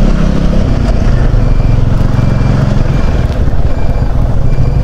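Vehicle engine running steadily on the move, with wind rushing over the microphone.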